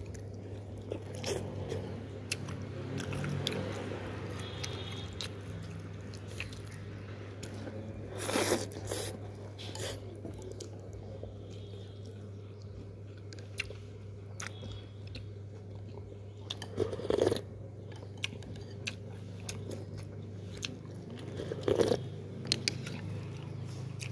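A person eating bún bò Huế noodle soup: close-up chewing and mouth sounds, with several louder noisy bursts about a second long spread through, over a steady low hum.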